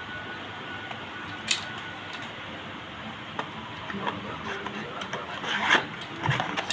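Handling noises from unpacking: a few sharp clicks, then a busier run of clicks and rustling in the second half, over a steady background hiss.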